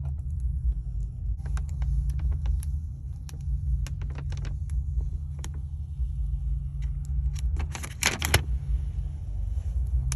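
Thin protective plastic film being peeled off the face of an LED vanity mirror: scattered small crackles and crinkles, with a louder burst of crinkling about eight seconds in, over a steady low hum.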